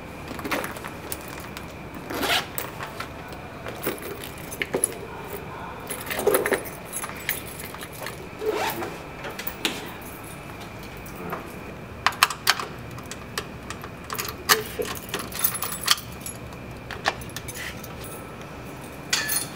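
Keys jangling and clinking as a handbag is rummaged through, with scattered rustles and clicks of the bag, and a sharper clatter of keys near the end.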